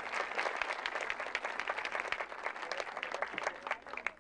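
Audience applauding, thinning out to a few scattered claps near the end.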